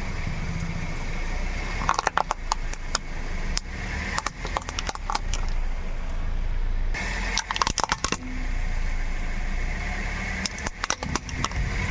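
A car running slowly while its tyres crush brittle objects. Clusters of sharp cracks and crunches come about two seconds in, around five seconds, near eight seconds and again near the end.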